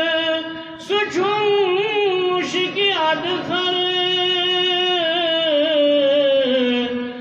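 Man singing a naat unaccompanied, holding long notes with wavering ornamented turns. There is a short breath pause about a second in, and the pitch sinks slowly near the end.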